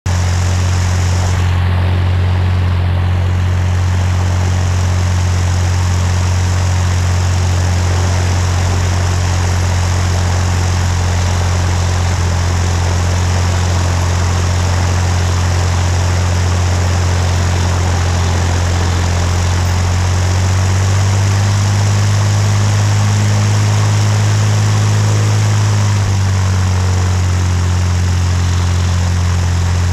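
Propeller aircraft engine running steadily with a strong low drone. The pitch rises slightly about 21 seconds in and falls back near 26 seconds.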